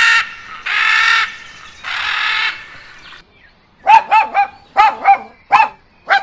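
Scarlet macaws giving harsh, drawn-out squawks, three in the first half. About four seconds in, a dog starts barking in short, quick barks, some seven of them.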